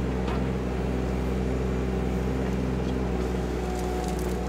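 Yanmar diesel engine of a KYMRON ZX22D mini excavator running steadily while the machine works its hydraulic arm and thumb, with a few faint clicks near the end.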